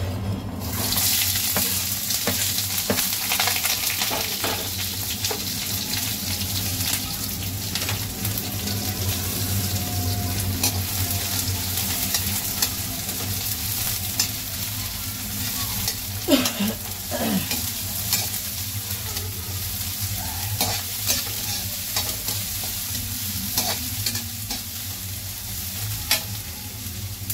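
Chopped onions and green chillies sizzling in hot oil in a kadai, going in about a second in. A spatula stirs them, scraping and tapping against the pan.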